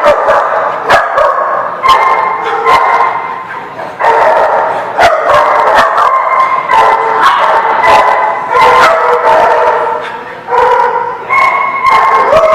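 Several dogs barking and yipping over one another without a break.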